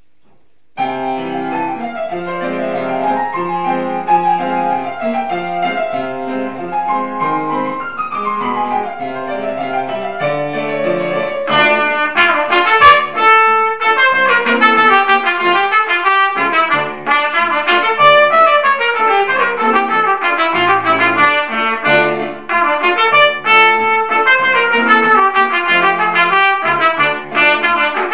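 A grand piano begins an introduction just under a second in. About twelve seconds in, a trumpet enters with the melody over the piano accompaniment.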